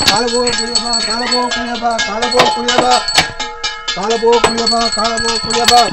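Small metal hand bell rung rapidly and continuously, its strokes overlapping into a steady jangling ring, over a run of short, repeated low pitched notes.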